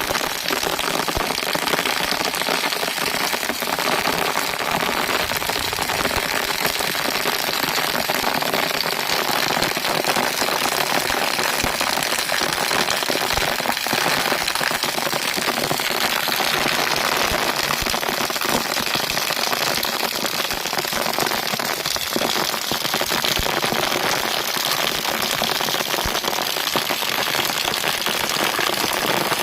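Steady rain falling, a dense continuous hiss with many individual drops ticking on a surface.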